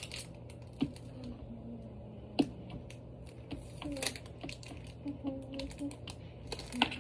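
A few scattered sharp taps and clicks of a utensil knocking on the counter as slime is cut in half.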